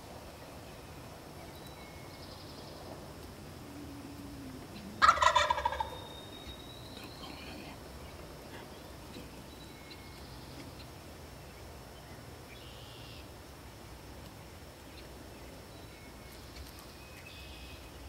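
Wild turkey gobbler gobbling once, loudly, about five seconds in: a single rattling call of about a second. Faint songbird chirps sound now and then.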